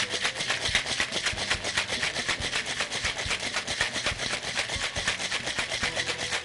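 Ice rattling hard inside a two-piece Boston cocktail shaker as it is shaken to chill the drink, a rapid, even rhythm of clattering strokes.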